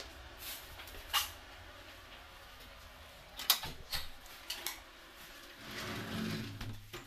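Scattered sharp clicks and knocks of household handling in a small tiled room, with a low rumbling shuffle near the end as a door is opened.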